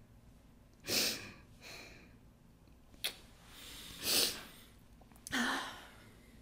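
A woman sniffling as she cries: three short, noisy sniffs, about a second in, around four seconds in and near the end, with a faint click just after three seconds.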